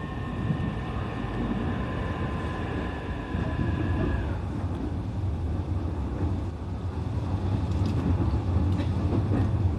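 Interior running noise of a JR East E531 series electric train on the move: a steady low rumble of wheels on rail, with faint steady motor whine that stops about four seconds in.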